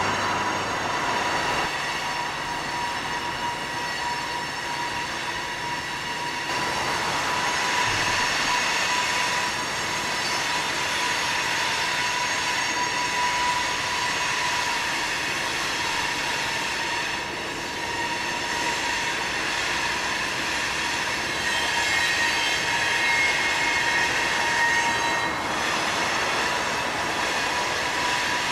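Wheel flange squeal from loaded coal hopper cars rounding a curve: a loud, steady high-pitched squeal of several tones at once, shifting in pitch now and then, over the rolling rumble of the train.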